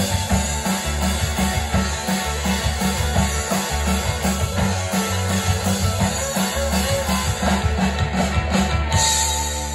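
Live rock band playing an instrumental passage on electric guitars, bass and drum kit, with a steady low pulse and a bright cymbal crash near the end.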